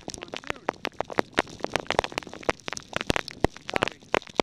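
Heavy rain striking the camera and its microphone during a thunderstorm: rapid, irregular sharp taps, several a second.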